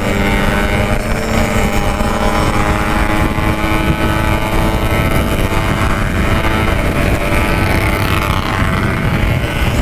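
Yamaha RX-King 135cc two-stroke single-cylinder engine running through a Packing Power exhaust at a steady cruising speed, with wind noise on the microphone.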